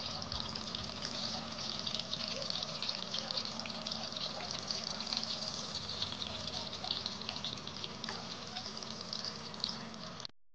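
Chapli kababs sizzling as they shallow-fry in hot oil in a pan: a steady crackling hiss that cuts off suddenly near the end.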